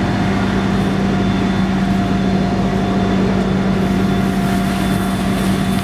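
Steady, loud hiss of steam rising off soaked ground heated by a live electrical wire grounding through a boat trailer's jack stand, over a constant low hum.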